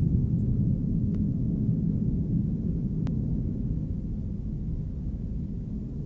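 A deep, low rumble that slowly fades, with two faint clicks in the first half.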